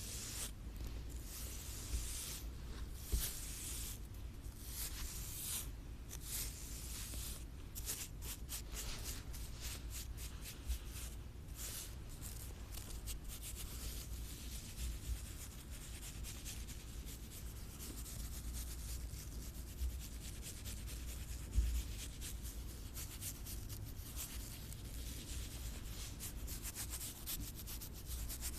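Close-miked ASMR scratching on an object: a steady run of quick scratching and rubbing strokes, with a few louder knocks, one about three seconds in and one near the end.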